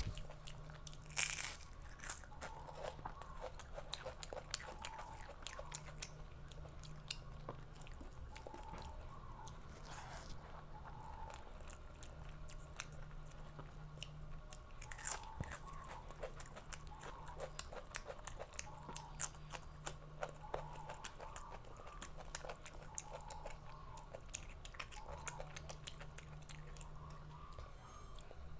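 A person chewing and biting food close to the microphone: a steady run of crunching and wet mouth sounds, with a few louder crunches near the start and about fifteen seconds in.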